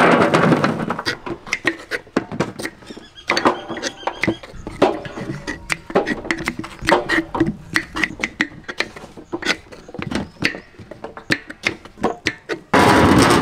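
A load of bananas tumbling and rattling out of a large metal pot, then a series of sharp taps and knocks from a knife cutting on a wooden board. Another loud rush of clattering comes near the end.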